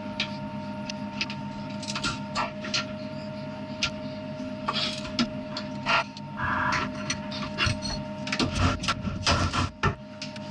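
Steady hum of an idling CNC vertical mill, with scattered metallic clicks and knocks as aluminium soft jaws are handled and clamped in the vises with a hand wrench; heavier knocks come near the end.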